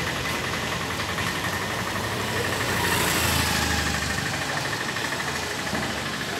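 Motorbike engine running as it passes close by, swelling to its loudest about three seconds in, over steady street traffic.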